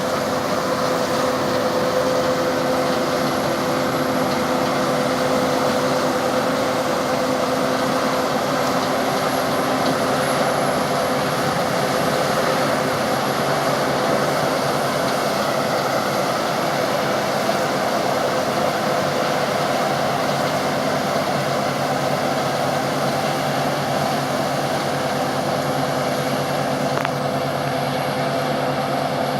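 Combine harvester running steadily while harvesting wheat, its engine and threshing machinery making a constant mechanical drone with a few steady whining tones.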